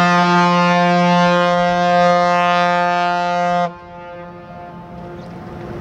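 Ship's horn of an approaching car ferry sounding one long, loud, steady blast that cuts off sharply after nearly four seconds and hangs on briefly as a faint echo. A low rumble builds near the end.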